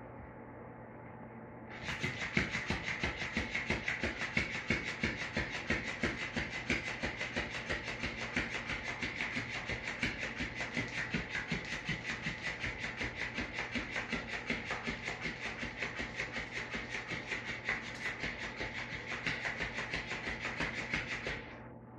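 Electric flopping fish cat toy running, its motor-driven tail flapping against a tile floor in a fast, even rhythm of about five beats a second. It starts about two seconds in and cuts off suddenly just before the end.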